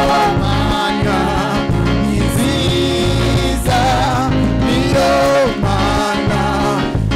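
Gospel choir singing through microphones over instrumental backing with a steady beat.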